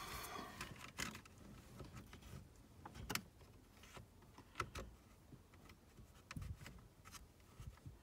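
Faint rustling and scattered light clicks of a turn signal switch wiring harness being fished down through a G-body steering column, with a few sharper clicks of wires and connector against the column.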